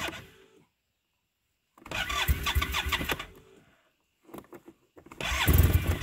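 Arctic Cat Norseman snowmobile engine turned over by its electric starter in repeated key-start attempts without catching. One crank ends about half a second in, two more of about two seconds each follow, and light clicks come between the last two. This is the hard no-start after sitting overnight that the owner takes for fuel draining out of the cylinder through a slow leak, or else a bad fuel pump.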